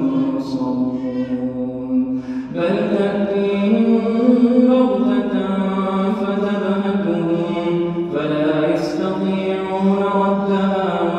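A man's solo Quran recitation in Arabic, chanted melodically in long held notes; a new phrase begins about two and a half seconds in.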